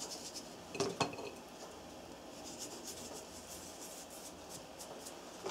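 Quiet handling sounds at a kitchen counter as pieces of raw meat are laid by hand onto a salted slab of pork fat: two light clicks about a second in, then faint small ticks and rubbing.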